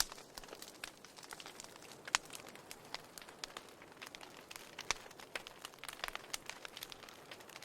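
Wood fire crackling in a fireplace: irregular sharp pops and snaps over a soft steady hiss, with louder pops about two seconds in and near five seconds in.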